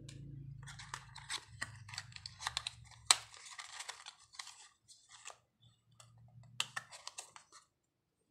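Phone accessories being handled: a USB cable's clear plastic bag crinkling, and a plastic wall charger clicking and tapping against a cardboard box tray, in a string of short rustles and clicks with the sharpest click about three seconds in.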